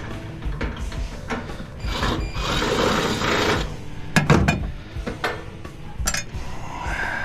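A power drill running for a second or two while driving out screws from sheet-metal panels of a PTAC unit, followed by a few sharp metal clanks as parts are handled.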